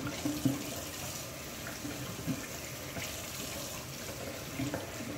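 Kitchen faucet running steadily into a stainless steel sink, the water splashing as a dog is rinsed under it by hand.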